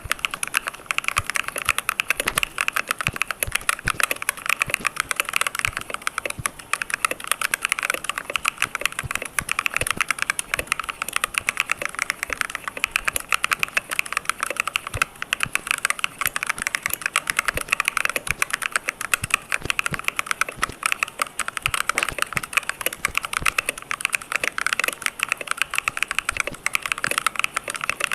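Continuous fast typing on a very clicky keyboard: a dense, unbroken stream of sharp key clicks.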